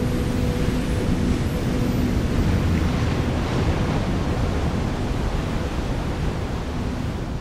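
Large ocean waves breaking: a loud, steady rush of crashing surf and churning white water.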